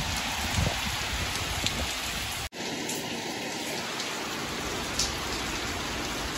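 Steady heavy rain pouring down, with the patter of drops hitting surfaces. The sound breaks off sharply about two and a half seconds in and goes on with less low rumble.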